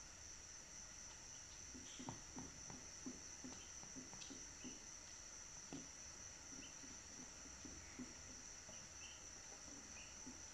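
Faint sounds of young Brahman chicks in a brooder: scattered soft taps and rustles in the bedding and a few brief, faint cheeps, over a steady high-pitched whine.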